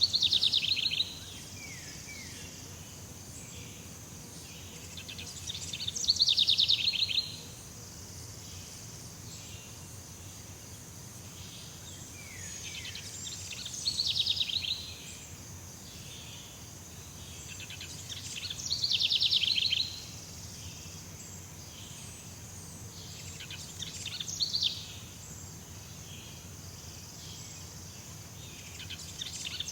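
Jungle ambience: a steady high insect drone over a low rumble, with a loud trilling animal call that recurs about every five to six seconds. Each call swells over about a second and stops abruptly.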